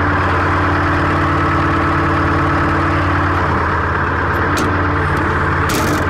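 Large forklift's engine idling steadily after being started, its note shifting slightly a little past halfway. A click comes about four and a half seconds in and a brief hiss near the end.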